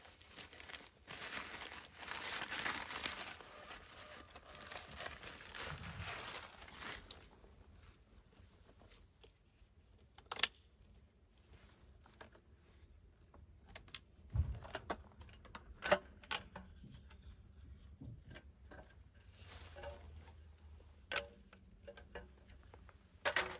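Rustling and crinkling for about seven seconds, then scattered sharp clicks and knocks.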